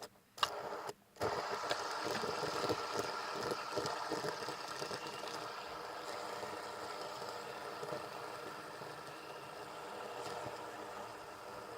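Fidget spinner flicked into motion about a second in after a few clicks, its ball bearing whirring with a steady hum that slowly fades as it spins down.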